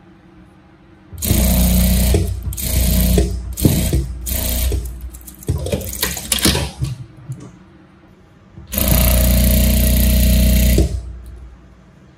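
Industrial lockstitch sewing machine stitching fabric in stop-start runs. It starts about a second in, runs in several short bursts over about six seconds, pauses, then runs steadily for about two seconds and stops about a second before the end.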